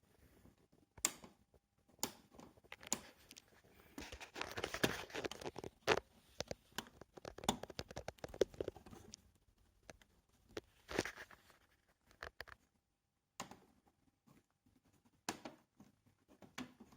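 Plastic TV casing being pried apart by hand: sharp clicks of plastic clips snapping loose, with a stretch of scraping, rattling plastic about four to six seconds in.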